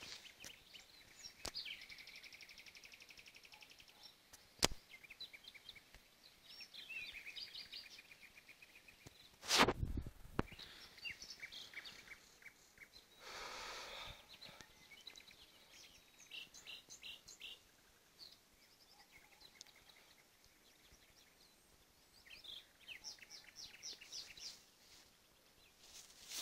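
Night chorus of small calling animals: short high chirps and fast buzzy trills repeating on and off. A sharp click comes a little over four seconds in and a loud thump near the middle.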